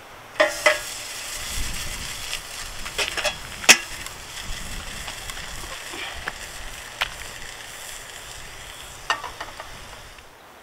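Food sizzling as it fries in a pan, likely the lamb for kavurma, with a few sharp clicks and taps through the sizzle.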